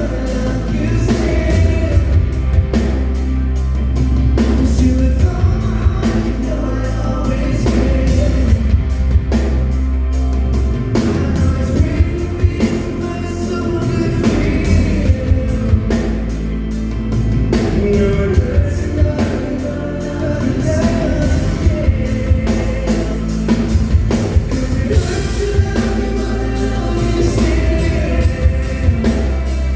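Live pop-rock band playing with a steady drum beat and strong bass, and a singing voice over it.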